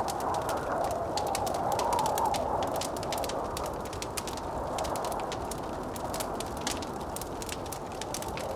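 Blizzard wind howling with a wavering whistle, strongest in the first couple of seconds and easing after, over the dense small pops of a crackling wood fire.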